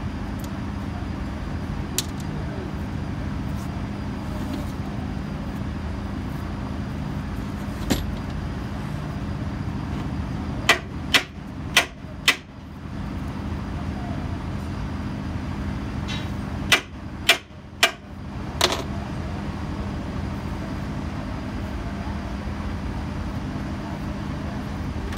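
Sharp metallic knocks and clanks of hand work on a stripped Hino 1J truck engine block: two single knocks, then two quick runs of four strikes in the middle, over a steady low background rumble.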